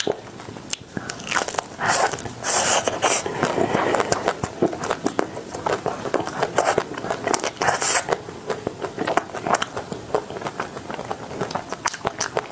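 Close-miked biting into the hard chocolate shell of a nut-studded ice cream bar, with crackling bites about two seconds in and again about eight seconds in, and crunchy chewing with sharp clicks in between.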